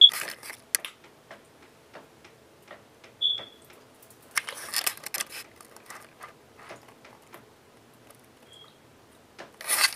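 DSLR camera being handled: scattered light clicks and taps, with a short high autofocus beep at the start and again about three seconds in, and a fainter beep near the end. A brief rustle of handling comes around four to five seconds in.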